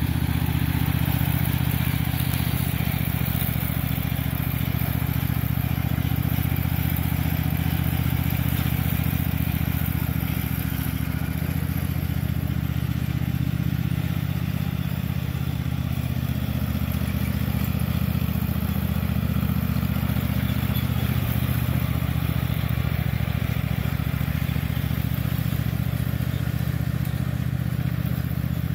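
Riding lawn mower's gasoline engine running steadily while mowing grass.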